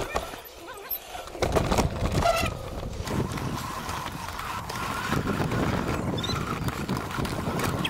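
Mountain bike riding over a rough dirt trail: tyres crunching on grit and the bike rattling over bumps, with wind buffeting the microphone. Quieter for about the first second and a half, then a steady rattling rumble.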